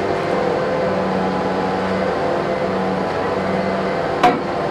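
Mobile crane's diesel engine running steadily, with a single sharp clank and a brief ring about four seconds in.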